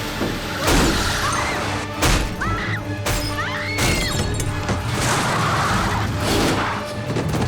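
Horror-film score music cut with several sharp crashing impacts, about one second apart, and short high squeals that bend up and down.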